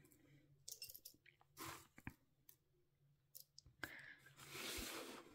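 Faint, dry rustling and scattered light clicks of dried mealworms being picked by hand from a plastic tub, with a short soft rustle near the end.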